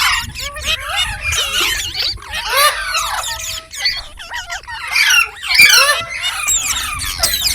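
Green parrot chattering with rapid, shrill, squeaky chirps and squawks, loudest right at the start and in two stretches later on.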